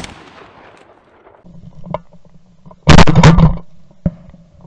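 Shotgun shots at flushing quail: the fading report of one shot at the start, then about three seconds in a very loud blast lasting under a second. A few sharp clicks come in between.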